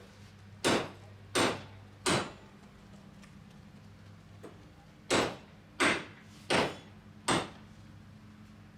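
Hammer blows, seven sharp strikes in two runs: three about a second in, then four more in the second half, each about 0.7 s apart.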